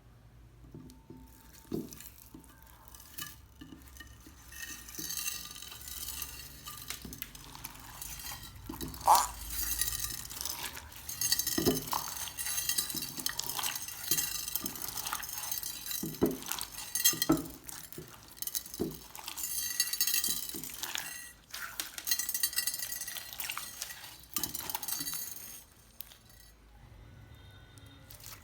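Slime being stirred and worked with small plastic gem toys mixed in: a dense crackling with scattered clinks, starting a few seconds in and dying away near the end.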